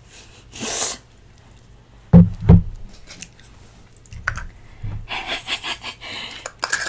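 Whipped cream sputtering out of a can or nozzle in short hisses and crackly spits, with two dull thumps about two seconds in; it isn't coming out well on the first squeeze.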